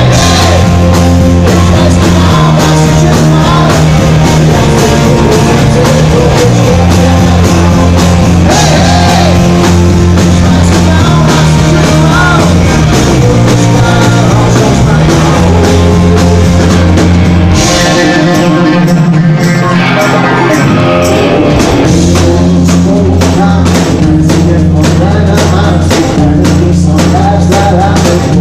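Live pop-rock band playing loud: strummed acoustic guitar over bass notes and a steady drum beat, with a man singing in parts.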